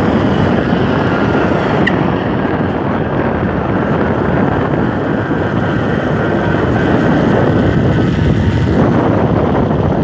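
Heavy wind rushing over the microphone while riding at speed behind a motorbike, with the vehicle running under it.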